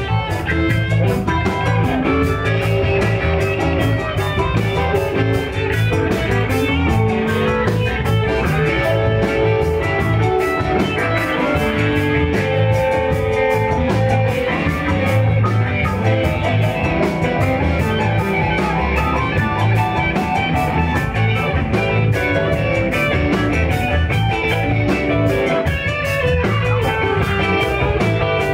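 Live band jamming: two electric guitars playing over bass and drums, with a steady drumbeat running under them.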